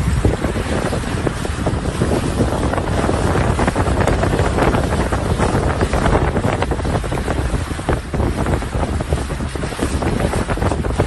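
Wind buffeting the microphone on a moving boat: a loud, uneven rushing with crackling gusts.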